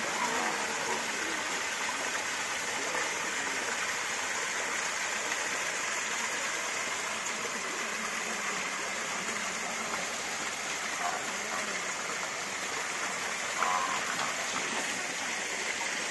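Small waterfall splashing steadily into a shallow pond: a constant, even rush of falling water.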